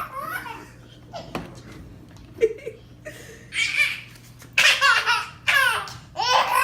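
Baby laughing in a run of high, hearty bursts, starting a few seconds in, after a single knock about a second and a half in.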